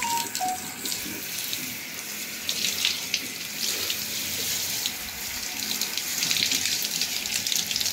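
Water running from a handheld shower head and spattering into an enamel bathtub and over the hands holding it, a steady hiss as the water temperature is set before rinsing.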